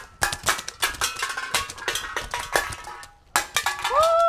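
Rubber bands snapping off a homemade cardboard repeating rubber-band gun in rapid fire and hitting aluminium drink cans: a quick run of clicks and metallic clinks as cans are struck and knocked over, lasting about three seconds. Near the end a long steady call begins.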